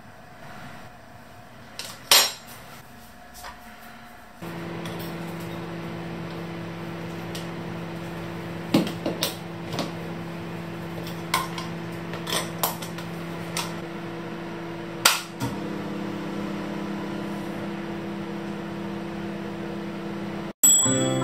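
Scattered sharp plastic and metal clicks and knocks as a Smeg hand blender is handled and its wire whisk attachment is fitted, over a steady low hum that starts a few seconds in and cuts off near the end.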